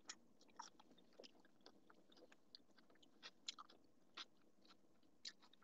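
Faint chewing of a forkful of burrito bowl, with soft, irregular mouth clicks close to the microphone.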